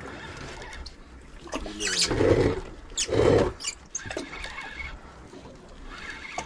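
A man's voice calling out twice in drawn-out wordless exclamations, about two and three seconds in, over a low steady rumble and scattered clicks.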